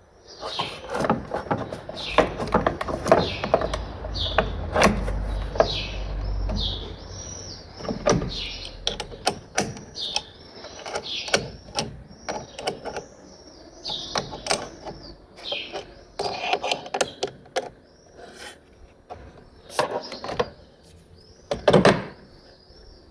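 Small birds chirping over and over, mixed with sharp clicks and knocks from things being handled close by.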